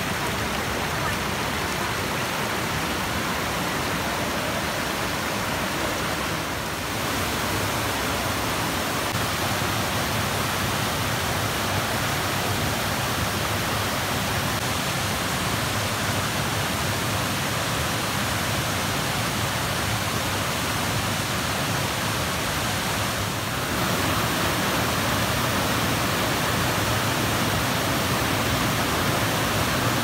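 Waterfall and rocky mountain stream rushing, a steady wash of falling water that dips briefly twice and is a little louder over the last few seconds.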